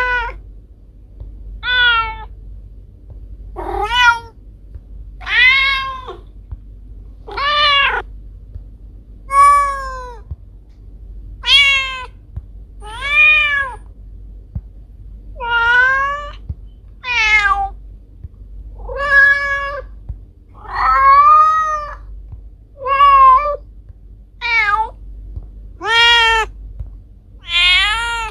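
Domestic cat meowing over and over, about sixteen separate meows each rising and then falling in pitch, one every second or two, over a faint steady low hum.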